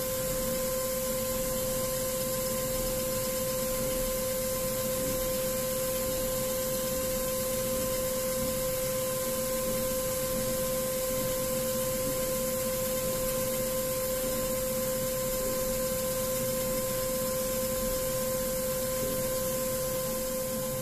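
High-speed CNC engraving spindle running with a steady whine over an even hiss, its diamond tool cutting a pattern into an 18k gold bangle.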